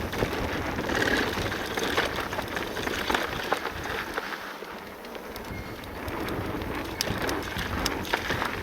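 Cube full-suspension enduro e-mountain bike descending a dirt and gravel bike-park trail: steady tyre noise on the loose surface, with frequent sharp clicks and knocks as the bike rattles over bumps.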